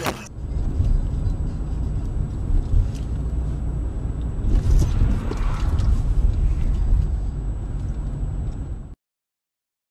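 Road and engine rumble heard inside a moving car through a dash-cam microphone, loud and steady, with a faint high steady tone above it and a brief hiss about four and a half seconds in. It cuts off abruptly about a second before the end.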